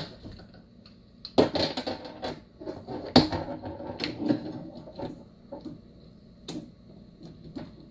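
Sharp clicks and clattering as clip leads and wires are handled and clipped onto the terminals of a Mercury power-trim pump's solenoids. A sharp click opens it, a busy run of rattling clicks follows from about one and a half to four and a half seconds in, and a few single clicks come after.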